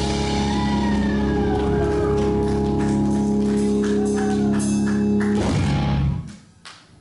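Live blues-rock band of electric guitar, bass and drum kit holding a final chord, with a note gliding down in pitch and a run of drum and cymbal hits. The band stops together about five and a half seconds in, and the sound dies away.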